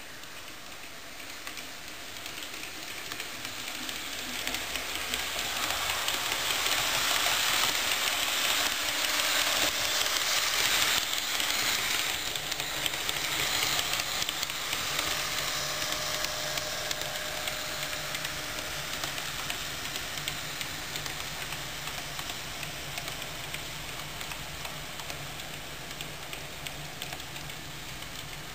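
Model train of a yellow Plan U railcar running along the track: a hissing rolling and motor noise that grows as it comes near, is loudest about ten seconds in, then slowly fades as it runs away. A faint low hum joins in about halfway through.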